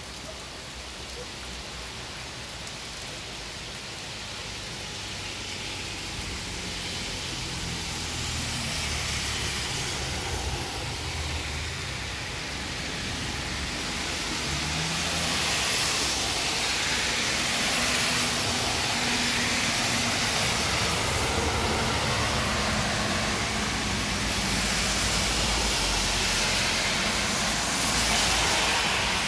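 Heavy rain falling steadily on a street, with cars driving past on the wet road, their tyres hissing through the water. The noise grows louder in the second half in a few slow swells as cars pass, the loudest near the end.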